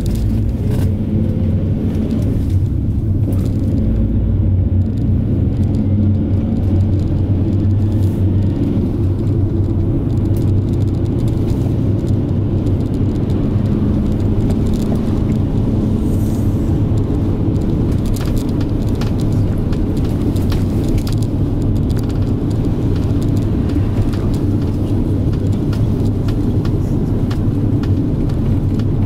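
Minibus engine and road rumble heard from inside the cabin while driving, steady and low, with a light click or rattle now and then.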